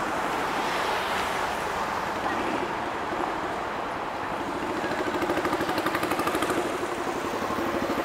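City street traffic at a busy intersection: cars passing, with a nearby vehicle engine adding a rapid even pulse from about five seconds in.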